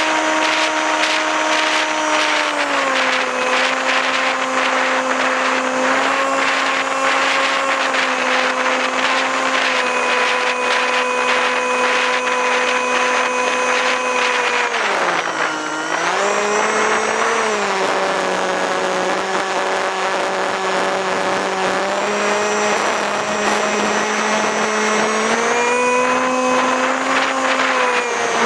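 Electric motor and propeller of a small RC plane buzzing steadily, heard from a camera on the plane with wind rushing over it. The pitch steps down about three seconds in, dips sharply for a moment in the middle, and rises again near the end.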